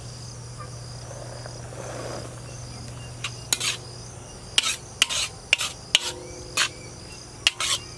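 A metal spatula clanking and scraping against a black wok as chopped vegetables are stirred over a wood fire, a string of sharp clinks from about three seconds in, after a soft sizzling rush as chopped beans are tipped into the pan. Crickets chirp steadily underneath.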